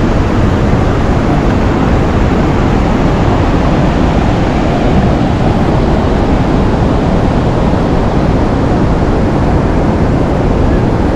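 Athirappilly Falls: a loud, steady roar of falling and rushing water.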